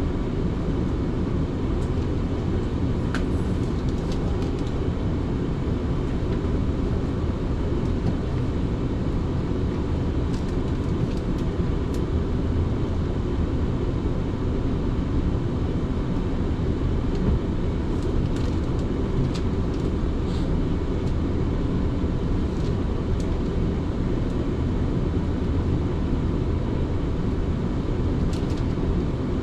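Steady rumble of an electric train running at speed, heard from inside the carriage: wheels on the rails and running noise, with a few faint ticks scattered through.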